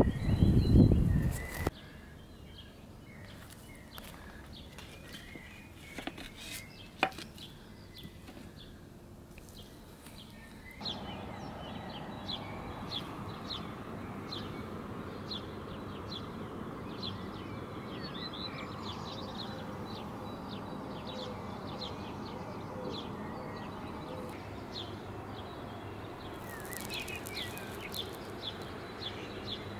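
Outdoor ambience with small birds chirping repeatedly in short high notes. A loud low rumble cuts off about two seconds in, a few sharp clicks come around six to seven seconds, and a steady background hiss rises about eleven seconds in.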